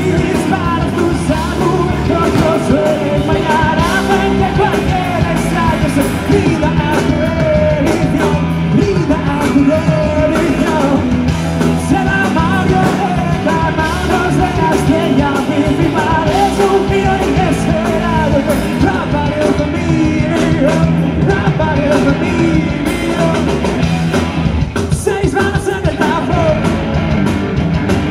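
Live rock band playing through the PA: electric guitars, bass and drum kit, with the lead singer singing into the microphone over them.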